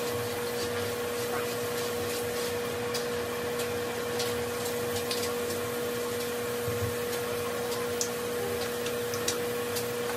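A steady electric motor hum holding one unchanging pitch, with scattered light clicks and scrubbing from teeth being brushed.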